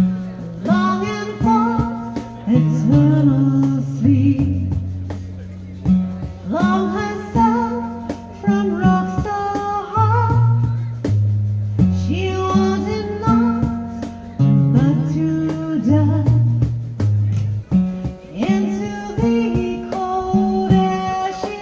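Folk band performing a song live, a voice singing over plucked strings and sustained low notes.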